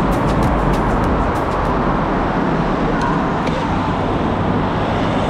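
Road traffic heard from a bicycle inside a road tunnel: a loud, steady noise with a deep rumble as cars and trucks pass close. A few sharp ticks sound in the first couple of seconds.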